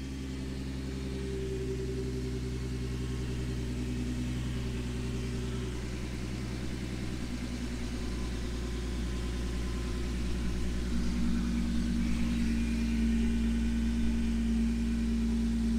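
Infiniti G37's 3.7-litre VQ37 V6 idling steadily, with its factory PCV system replaced by crankcase breather filters so that it no longer pulls vacuum on the crankcase.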